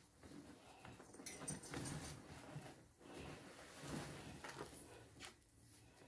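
Faint rustling and knocking of produce being rummaged in a cardboard box, with a brief crinkle early on as the bunch of carrots is pulled free.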